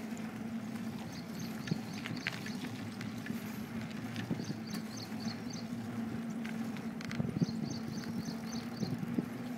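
Running footsteps slapping on a paved road, with knocks from the handheld phone jostling and a steady low hum underneath. A bird calls a quick series of high chirps a few seconds in and again near the end.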